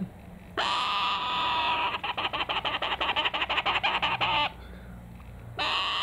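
Young hand-raised corella chick calling: a long harsh rasping call, then a fast run of rasping pulses at about ten a second, and another harsh call near the end.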